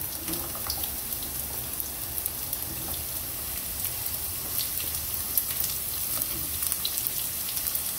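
Carrot sticks frying in hot oil with mustard seeds and dried red chillies: a steady sizzle with scattered small crackles.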